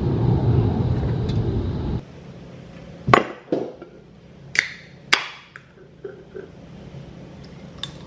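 Steady outdoor background noise that cuts off about two seconds in. Then a few sharp clicks and knocks as an aluminium soda can is handled on a countertop and its tab is cracked open beside a glass of crushed ice.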